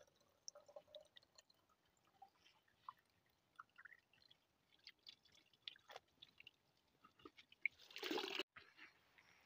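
Faint trickle of spring water from a plastic bottle spout into a small plastic bottle, with little gurgles that rise in pitch as the bottle fills. About eight seconds in there is a short loud rustle of handling noise that cuts off suddenly.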